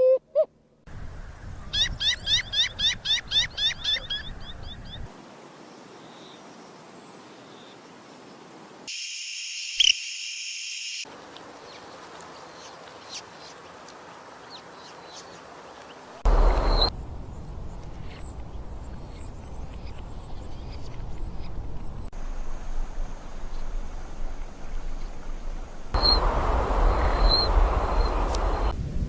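Birds chirping and calling in a string of separate recordings joined with sudden cuts, opening with a quick series of repeated chirps, about three a second, for a few seconds.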